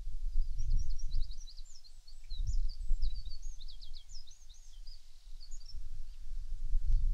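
Songbird singing a fast, jumbled run of high chirps and short trills in a dawn chorus, stopping about a second before the end. Underneath, a low rumble swells and fades, louder than the birdsong.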